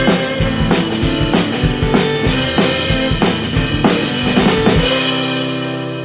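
Band's instrumental outro: a drum kit plays a driving beat with bass and guitars, and about five seconds in the band stops on a final held chord that rings out and fades.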